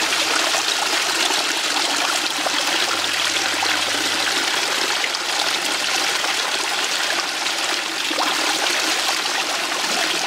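Koi pond waterfall running: a steady rush of falling, splashing water.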